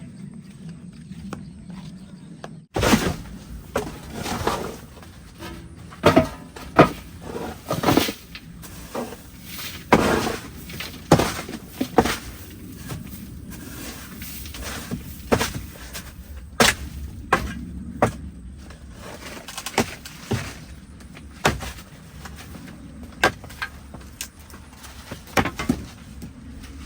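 Irregular knocks and thuds, some sharp and some dull, starting suddenly about three seconds in and continuing unevenly, over a low steady rumble.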